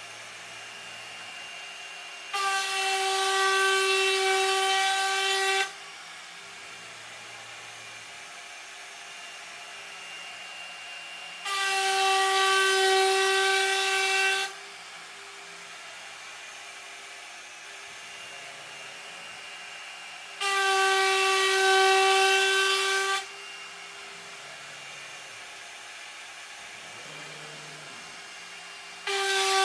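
A Onefinity Elite CNC router's 1.5 kW air-cooled spindle spins a ¼-inch upcut spiral bit at 24,000 rpm and cuts straight ¼-inch-deep grooves in wood. There are four passes of about three seconds each, each a loud, steady, high-pitched whine, as the feed rate steps up from 450 to 600 inches per minute. Between passes the spindle runs on unloaded at a much lower, steady level while the gantry repositions.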